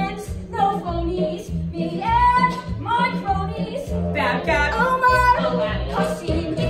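Young voices singing a musical-theatre song over an instrumental accompaniment track.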